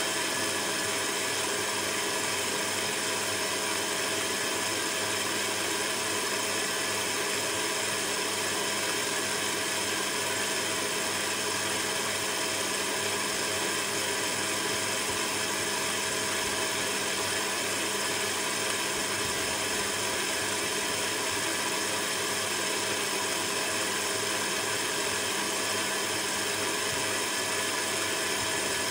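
Electric stand mixer running steadily, its motor humming as the beater works cake batter in a stainless steel bowl.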